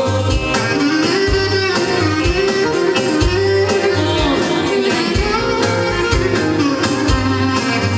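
Live band playing Albanian folk dance music: a clarinet plays a winding, ornamented melody over a steady beat.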